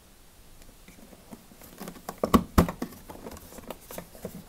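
Plastic access hatch on the underside of a dishwasher being worked loose by hand: a scatter of light plastic clicks and knocks, the two loudest a little over two seconds in.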